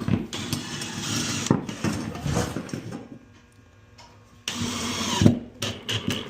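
Power drill running in two bursts, a longer one of about three seconds and, after a pause, a shorter one of about a second, grinding as it drills conduit holes in the pad's box.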